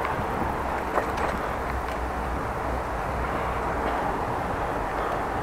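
Steady rolling noise of a bicycle ridden on a paved path: tyres on the surface and air rushing past the action camera's microphone, with a light click about a second in.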